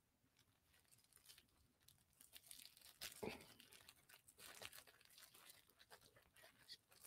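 Near silence, with faint crinkling of a plastic zip bag and paper coffee filter being handled as mashed strawberries are poured from the bag into the filter. The crinkles come scattered, a little louder about three seconds in.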